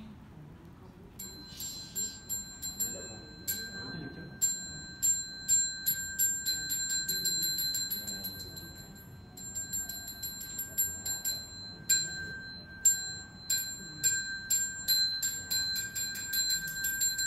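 Buddhist temple bell struck over and over, a high ringing tone kept going by quick, uneven strikes about three a second. It starts about a second in and eases off briefly around the middle before picking up again.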